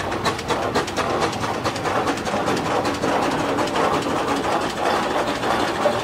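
1925 Breda steam road roller driving past up close, its steam engine running with a fast, even clatter of several beats a second.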